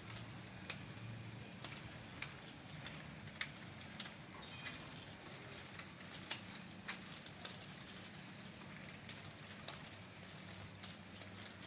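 Quiet shop background: a steady low hum with scattered faint clicks and taps.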